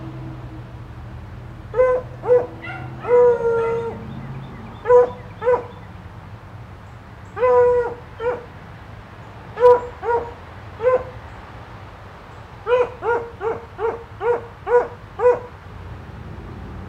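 A dog barking over and over: single barks, two longer drawn-out ones, and a quicker run of barks near the end.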